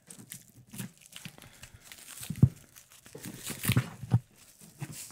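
Clear plastic shrink wrap being peeled and pulled off a small wrapped jaw harp by hand: irregular crinkling and crackling, loudest about two and a half seconds in and again near four seconds.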